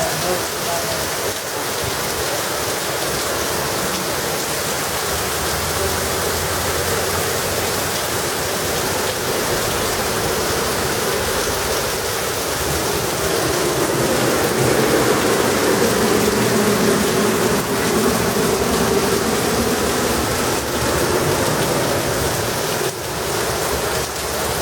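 Steady rainfall, an even hiss of rain on surfaces. A low hum swells in the middle and fades again.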